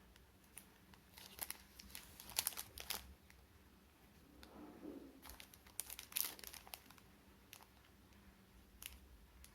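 Plastic packaging crinkling and rustling as it is handled by hand, in two spells: about one to three seconds in and again around six seconds in.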